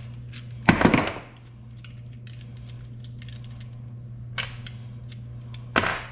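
Metal hand tools clinking and clattering against metal parts, with small clicks throughout and short, sharp clatters about a second in, near four seconds and near the end.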